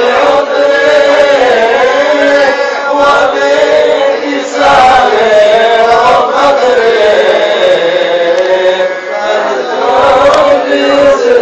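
Many men's voices chanting a devotional song together, the melody rising and falling continuously.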